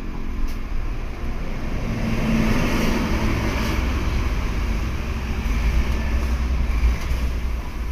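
Diesel forklift engine running under load while carrying timber, swelling about two seconds in.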